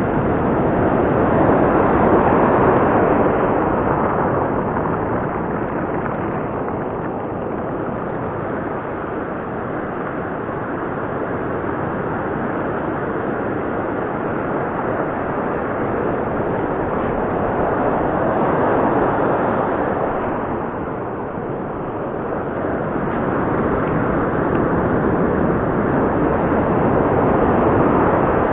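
Ocean surf breaking and washing up a dark sand beach close to the microphone: a loud, steady rush that swells and eases in slow surges as each wave comes in.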